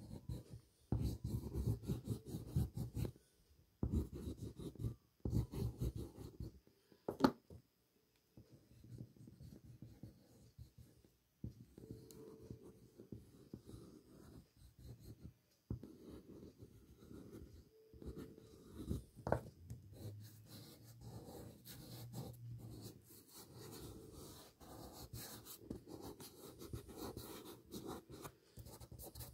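Blue pastel stick scratching across paper in quick, repeated strokes while outlining shapes, loudest in the first few seconds. Near the end a fingertip rubs the pastel into the paper. Two sharp clicks, one about seven seconds in and one about nineteen seconds in.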